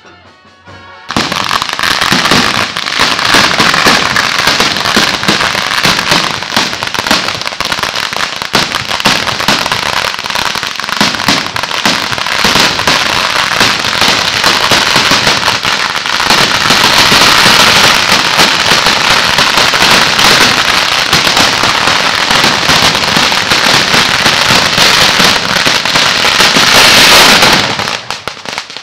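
Firecrackers going off in a loud, dense, continuous crackle of rapid bangs. It starts about a second in and keeps going for nearly half a minute, then stops abruptly near the end.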